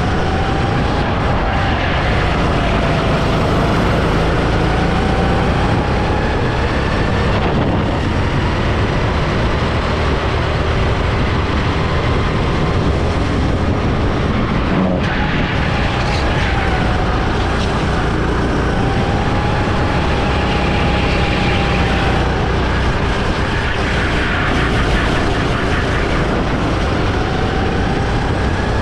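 Go-kart engine running at racing speed, its note gliding up and down as the kart accelerates out of corners and slows into them, over a heavy rush of wind on the onboard microphone.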